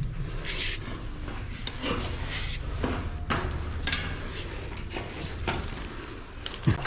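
Irregular scraping and rubbing strokes with occasional clicks, over a low steady hum.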